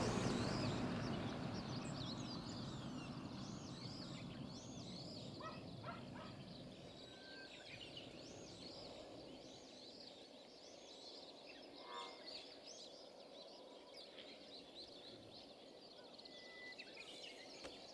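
Many birds chirping and calling faintly, with short overlapping chirps throughout, over the sound of a vehicle fading away in the first few seconds.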